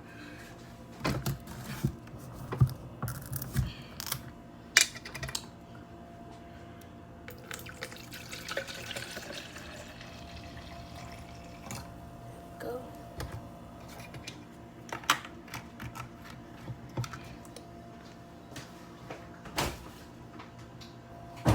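Kitchen handling sounds: scattered knocks and clicks, with a few seconds of liquid pouring about eight seconds in, as juice is fetched and poured.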